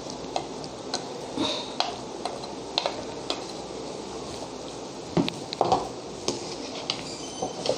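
A spatula stirring raw chicken pieces and thick ground masala paste in a nonstick pan, making irregular scrapes, knocks and clicks against the pan.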